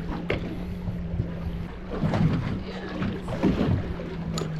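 Outboard engines of a Cobia 277 centre-console boat idling with a steady low hum, under wind on the microphone and irregular water noise.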